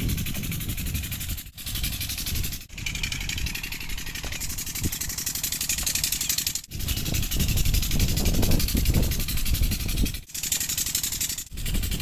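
Diesel irrigation pump engine running steadily: a low rumble with a fine, even beat and a hiss above it. The sound drops out for a split second five times.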